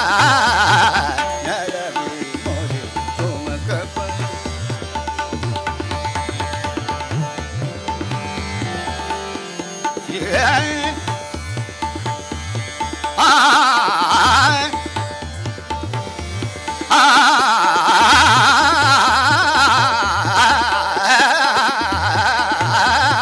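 Hindustani classical vocal music: a vocalist sings phrases over a steady tanpura drone, with tabla keeping up a regular rhythm of strokes that pauses briefly now and then. The singing drops out for long stretches, leaving tabla and drone, and comes back strongly for the last third.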